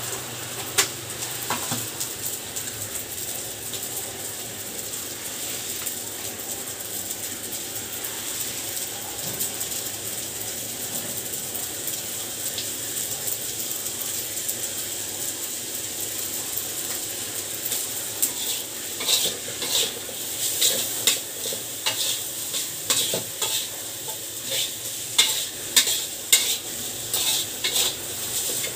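Fried rice sizzling in a wide aluminium wok while a metal spatula stirs and scrapes it. From about two-thirds of the way in, the spatula clacks and scrapes against the wok in quick, irregular strokes as the rice is tossed.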